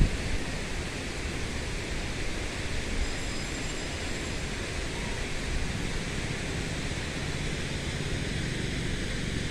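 Steady, even rushing noise of the outdoor background, with no distinct event standing out.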